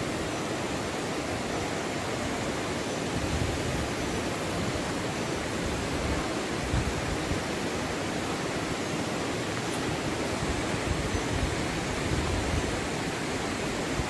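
Steady, unbroken noise of a large, tall waterfall's falling water.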